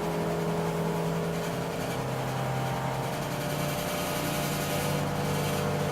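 Steady machine hum, like a motor or engine running, with a low tone that drops slightly and comes back up a couple of times.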